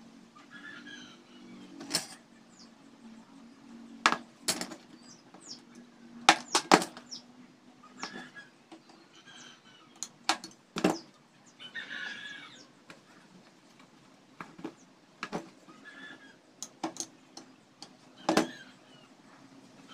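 Irregular sharp clicks and taps of small PVC plastic pieces being handled, cut and set down on a cutting mat, about a dozen in all, with a faint low hum underneath.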